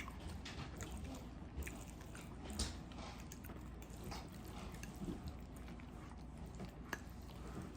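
A person chewing a mouthful of spaghetti in meat sauce: quiet, irregular wet clicks and smacks of the mouth.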